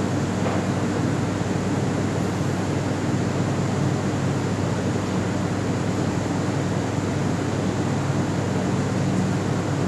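Burmeister & Wain's Diesel Engine No. 1, a 40-horsepower single-cylinder diesel from 1904, running steadily with a loud, even mechanical noise.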